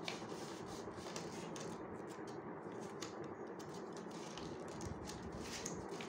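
Soft rustling and creasing of a sheet of origami paper as it is folded and pressed flat by the fingers, a few faint crinkles over a steady low hiss.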